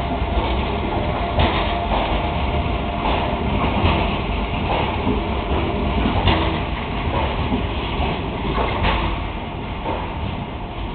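Renfe S-130 Talgo train rolling past along a station platform: a steady rumble with irregular clacks from the wheels, getting a little quieter near the end.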